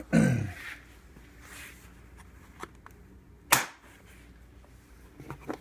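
Handling of a Stanley toolbox as its top section is lifted off: a brief sound falling in pitch at the start, then a single sharp click about three and a half seconds in, and a few small clicks near the end.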